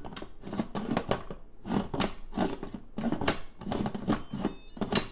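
Instant Pot lid being seated and twisted on the pot: repeated plastic-on-steel clunks and scrapes, several a second, as it is worked round into its locked position, with a few faint high squeaks near the end.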